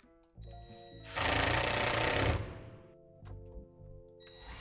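Cordless impact driver hammering a screw into a plastic deck-box panel in one burst of about a second, starting about a second in, over quiet background music. A second burst starts right at the end.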